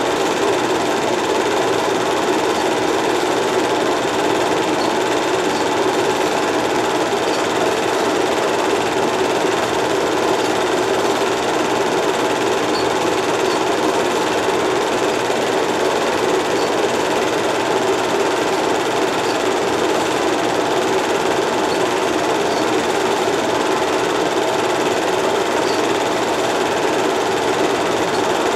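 8mm film projector running steadily, its motor and film-advance mechanism making an even mechanical whir.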